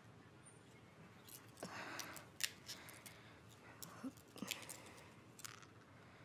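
Scissors snipping through a plastic-and-foil blister strip of tablets: several short, quiet snips with light rustling of the strip.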